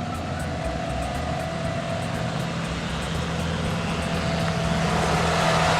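Engine of the vehicle towing a barrel train ride, running steadily and growing louder toward the end.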